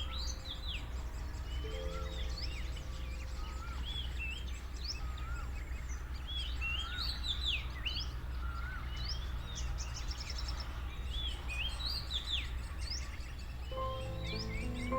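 Many birds chirping, with short, overlapping whistled calls that slide up and down in pitch, over a low steady hum. Soft sustained music notes sound at the start and come back near the end.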